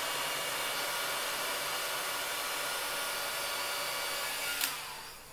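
Hot air gun blowing steadily, heating a low-temperature solder sleeve over a wire splice. A click comes about four and a half seconds in, and the blowing noise then dies away.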